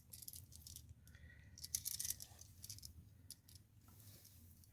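Scattered small clicks and light metallic rattles from outlet hardware being handled, a little louder about two seconds in.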